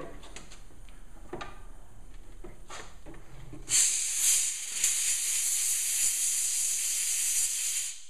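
Pressure-pot sandblaster gun blasting abrasive onto a rusted metal disc: a steady hiss that starts a few seconds in, dips briefly, and cuts off sharply near the end as the foot-pedal valve is released. A few faint handling clicks come before it.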